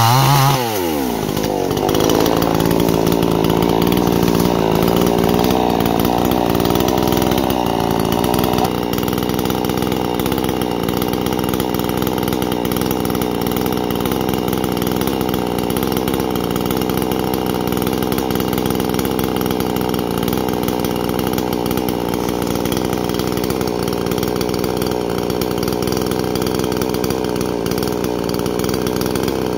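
Tokai chainsaw's small two-stroke engine drops sharply from high revs to idle just under a second in, then idles steadily.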